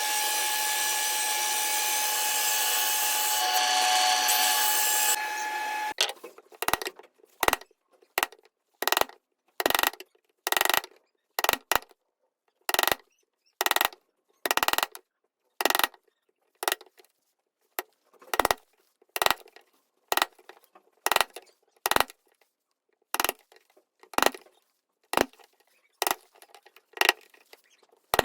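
A power tool runs steadily on wood for about six seconds, then stops. It is followed by a long run of short, even strokes of a hand tool on wood, a little more than one a second, with quiet gaps between them.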